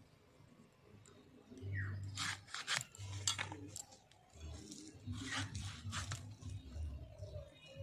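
Green brinjal being sliced on a bonti, a fixed curved blade: a series of short, crisp cutting strokes, in two clusters.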